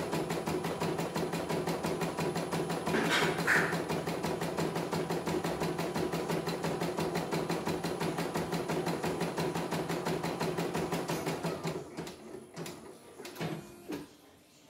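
CNY E900 computerized embroidery machine stitching a design with a rapid, steady needle rhythm, with a short burst of noise about three seconds in. About twelve seconds in the stitching stops and a few scattered clicks and knocks follow as the machine finishes the pattern, having run the test stitch-out without trouble.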